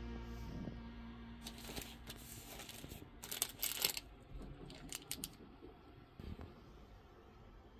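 Clear plastic packet crinkling in a few short bursts as a hand handles it, the loudest about three and a half seconds in.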